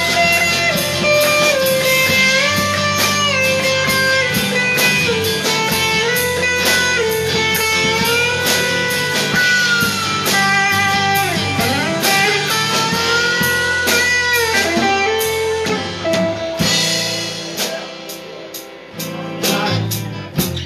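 Live blues band playing: an electric guitar lead with notes bending up and down over electric bass and a drum kit. The bass drops out for a few seconds near the end.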